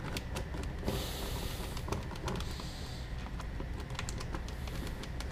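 Spur embedder's toothed wheel rolled along a frame wire over a sheet of beeswax foundation, giving a run of light, irregular clicks with two short soft scraping hisses, as the wire is pressed into the wax.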